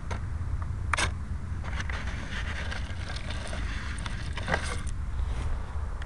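Handling noise on an RC model plane's onboard camera: scattered clicks, knocks and scrapes as the airframe is picked up and moved, the loudest about a second in and again after four seconds, over a steady low rumble. No motor is running.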